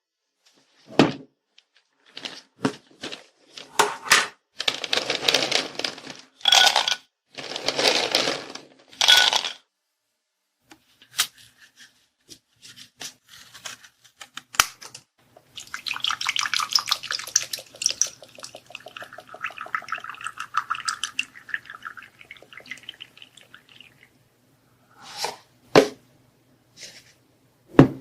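Close-miked eating and food-handling sounds: a run of separate crunching and rustling bursts, then a longer stretch of rapid fine crackling.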